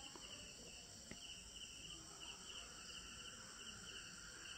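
Near silence: room tone with faint high-pitched chirping repeating steadily in the background.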